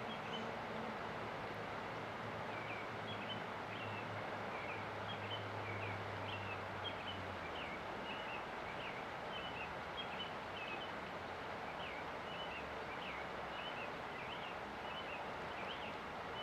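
River water rushing steadily, with a small bird chirping over it in short, high notes repeated one to two times a second. A faint low hum fades out about halfway through.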